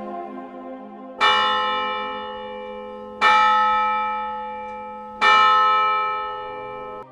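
A large bell struck three times, about two seconds apart, each stroke ringing and slowly fading; the last ring cuts off abruptly near the end.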